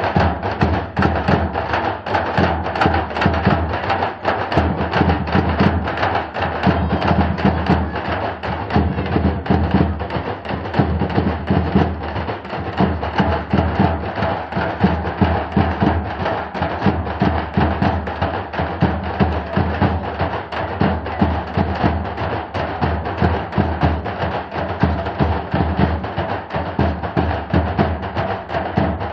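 Music with fast, steady drum and percussion beats.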